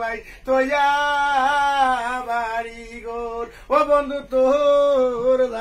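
A man singing without accompaniment in long, drawn-out held notes: one phrase, a short pause about three and a half seconds in, then another.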